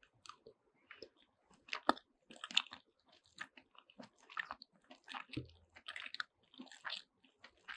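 A person chewing and biting food close to the microphone, with irregular soft crunches and mouth clicks about two or three times a second.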